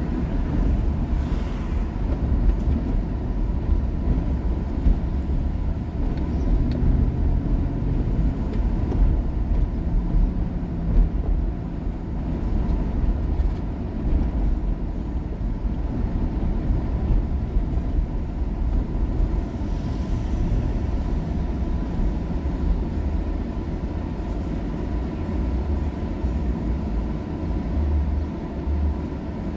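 Car's engine and road noise heard from inside the cabin while driving, a steady low rumble.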